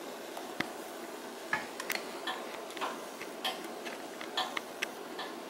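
Ronco Showtime countertop rotisserie oven ticking and clicking faintly and irregularly over a steady low hum.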